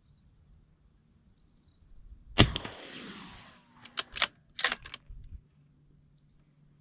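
A single suppressed shot from a Christensen Arms MPP 300 Blackout pistol about two and a half seconds in, with an echo trailing off over about a second. A few sharp clicks follow a second or two later.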